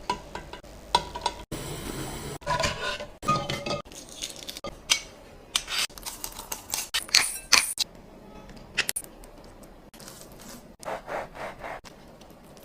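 Kitchen utensils and dishes being handled: irregular clinks, taps and scrapes of metal and crockery, a few with a short ringing tone.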